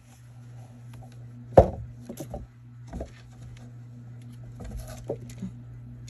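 Handling noise close to the microphone as a cat is moved aside: a sharp knock about a second and a half in, then scattered softer taps and rustles, over a steady low hum.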